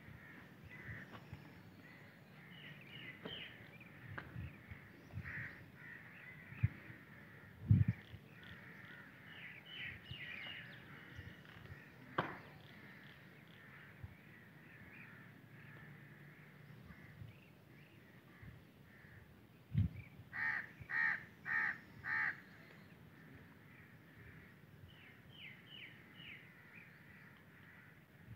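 A crow cawing five times in quick succession about two thirds of the way through, with small birds chirping faintly now and then and a few soft low thumps.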